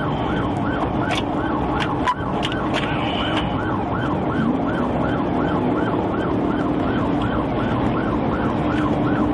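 Police patrol car siren in a quick yelp, rising and falling about three times a second, over the car's engine and road noise during a high-speed pursuit.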